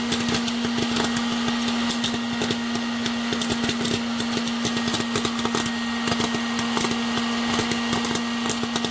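Electric popcorn maker running with a steady motor hum while kernels pop in rapid, irregular clicks.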